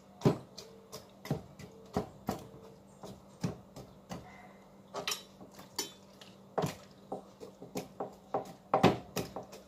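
A kitchen knife stabbing repeatedly into a raw whole chicken, its point knocking on the surface beneath. The knocks come irregularly, about two a second, the loudest just after the start and again near the end.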